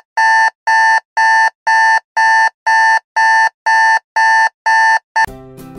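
Electronic alarm clock beeping, a loud steady beep about twice a second. It stops just before the end and music with a plucked guitar begins.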